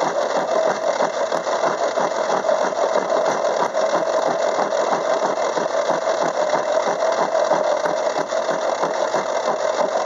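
Craftsman 6-inch metal lathe running with a gear cutter on its spindle, cutting a tooth space into a steel gear blank as the blank is fed past. It makes a steady, fast, even clatter.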